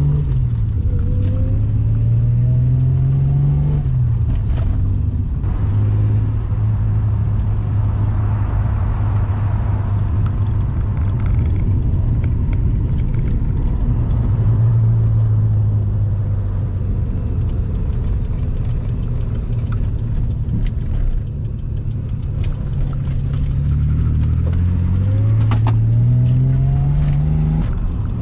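Holden Commodore engine heard from inside the car while driving: it revs up through a gear in the first few seconds, runs fairly steadily for a long stretch, then revs up again near the end.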